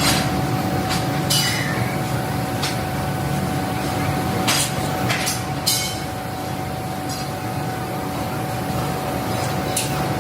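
Steady factory machinery running with a constant thin whine, broken by a handful of sharp metal clanks, some ringing briefly.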